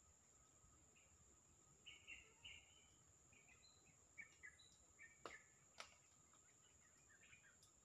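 Faint scattered bird chirps, short calls coming singly and in quick runs, over a steady high-pitched whine, with two sharp clicks a little after five seconds in.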